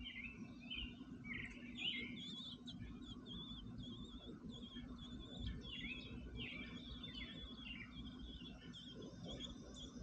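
American robins at the nest calling: a fast run of high, repeated chirps with some falling notes, as an adult robin arrives over its gaping chicks.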